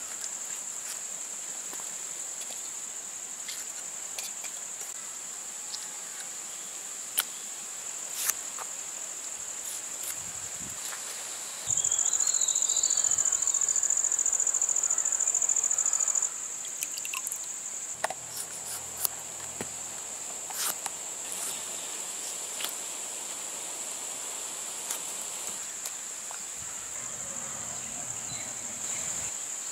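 Steady high-pitched insect chirring, which gets much louder for about four seconds near the middle. Now and then there are short clicks of a knife cutting through tomatoes.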